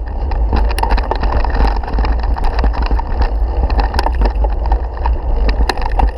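Mountain bike ridden over a bumpy grass track, heard through a bike-mounted action camera: a steady low wind rumble on the microphone with frequent small rattles and knocks from the bike shaking over the ground.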